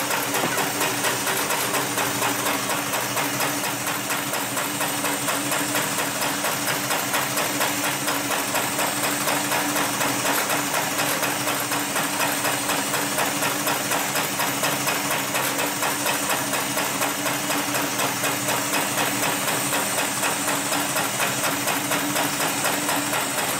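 Hightex 733BP automated spiral sewing machine running steadily, its needle punching through a thick stack of stiff sisal buffing-wheel cloth in a fast, even stitching rhythm over a steady motor hum.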